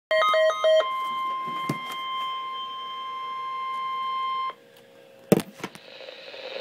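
A quick run of electronic beeps stepping between pitches, then the weather radio warning alarm tone: one steady high tone held about four seconds that cuts off abruptly. After it comes faint radio hiss with a sharp click about five seconds in, and the static rises toward the end.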